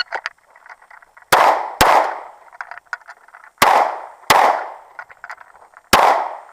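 Pistol shots fired in pairs during a timed match string: two about a second and a half in, two more around the middle, and a fifth near the end, each sharp crack trailing off in a short echo.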